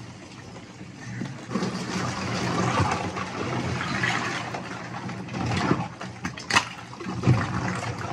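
Ice-bath water and crushed ice sloshing and churning as a person steps and lowers himself into the tub, starting about a second and a half in, with a few sharp knocks near the end.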